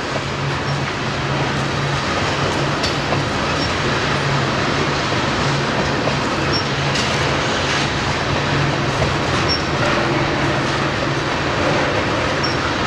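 Freight train tank cars rolling past on a curve: a steady rumble of steel wheels on rail, with scattered clicks and a few short, high squeaks from the wheels.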